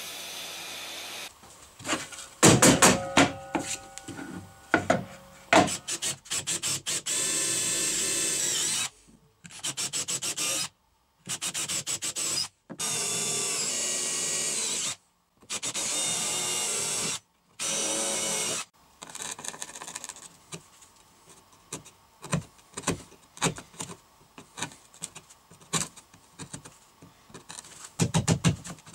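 Woodworking tool sounds: a miter saw running briefly, then knocks and clatter. A cordless drill then bores into a pine board in several short bursts of one to two seconds, broken by abrupt silences, followed by scattered taps and knocks and a last drill burst near the end.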